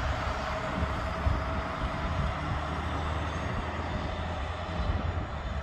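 Steady distant jet noise from the Cirrus SF50 Vision Jet's single turbofan engine, with wind buffeting the microphone as a low rumble.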